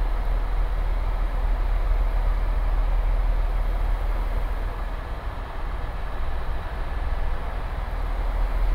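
Steady in-flight cabin noise of an Airbus EC130 T2 helicopter in cruise: a strong low rotor drone under an even hiss of engine and airflow.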